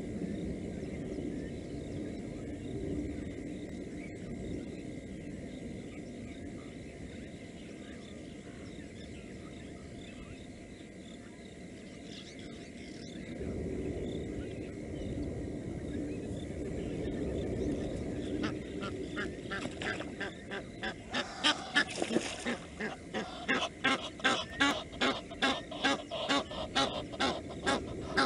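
Blacksmith lapwing giving its sharp, metallic "tink" alarm calls over and over. They start about two-thirds of the way in and grow louder, about two calls a second by the end.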